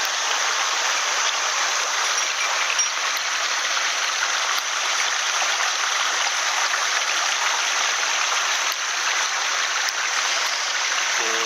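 Small mountain headwater stream running, a steady rush of water.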